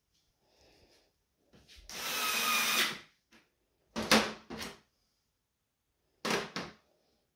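Small cordless electric screwdriver running for about a second and a half, driving a screw into a TV's sheet-metal back cover. Then come two short clatters of the tool and screws knocking on the metal panel, the first of them the loudest sound.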